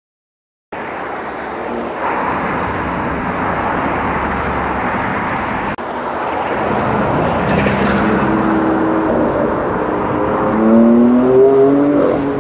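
Road traffic noise starting suddenly under a second in; in the last few seconds a vehicle engine climbs in pitch as it accelerates.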